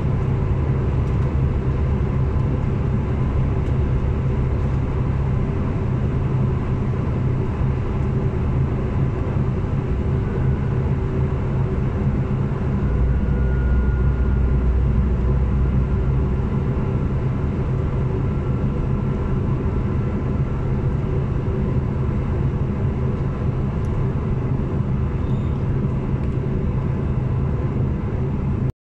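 Steady rumble and hum of a diesel passenger train running at speed, heard from inside the carriage, with a deeper low rumble swelling for a few seconds in the middle.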